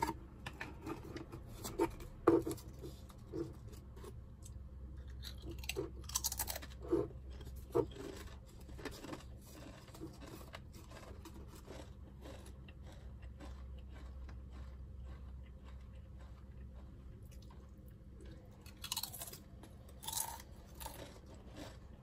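Crunchy purple sweet potato chips handled and eaten from a cardboard tube: the foil seal peeled back, chips rustling in the can and crunched while chewing, with sharp crackles thickest in the first eight seconds and a few more near the end.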